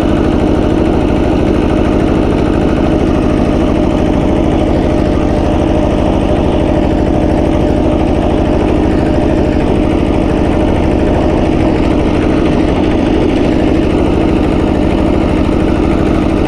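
Walk-behind two-wheel hand tractor (kuliglig) with a rotary tiller, its engine running steadily under load while the rotor blades work the field soil fine and soft.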